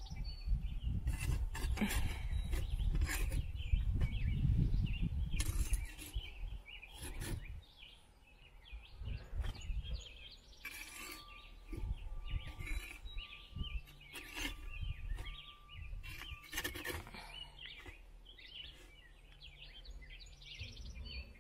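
Metal spatula scraping and knocking on the floor of a clay cob oven as zucchini burgers are turned and moved, in short repeated scrapes. A low rumble dominates the first six seconds, and birds chirp faintly throughout.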